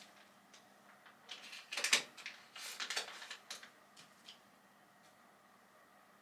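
Small handling noises: a click, then a cluster of short rustles and taps from about one to four seconds in, and a couple of light clicks after.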